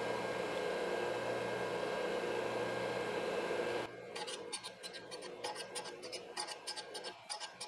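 Valve refacing machine running steadily with its grinding stone, then about four seconds in the steady sound drops away and a quick run of short scratchy rasping strokes follows as the end of a new valve stem is ground down to length on the stone.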